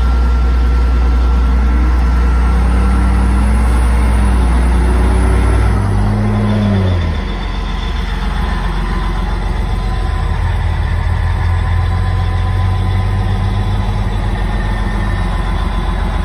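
Cat D8 bulldozer's diesel engine running, heard from inside the cab as a loud steady low drone. Its note wavers up and down over the first few seconds, then drops in pitch and eases slightly about six to seven seconds in, and runs on steadily at the lower note.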